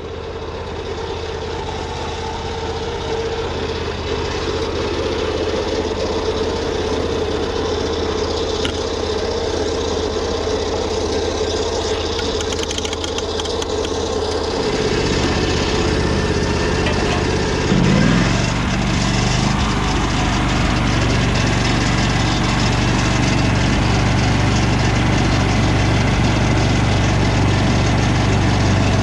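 Lucas Mill 618 swing-blade sawmill running on its V-twin engine, its circular blade sawing along a log of beetle-killed lodgepole pine. A steady mid-pitched tone holds through the first half; about 15 to 18 seconds in the sound shifts to a deeper, slightly louder engine drone.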